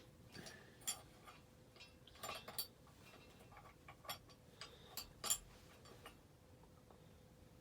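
Casablanca Delta III ceiling fan running on low speed, its motor giving a faint steady hum. Light, irregular clicks and ticks come through it for the first six seconds or so.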